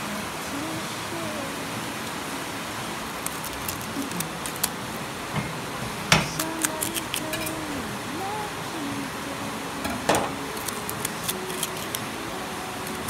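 Metal spoon scraping and clicking against the rind of a halved krasang fruit as the seeds are dug out and dropped into a ceramic bowl: scattered small clicks, with two louder knocks about six and ten seconds in.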